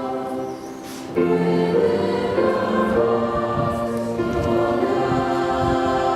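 Church choir singing a hymn in long held notes, growing louder a little over a second in.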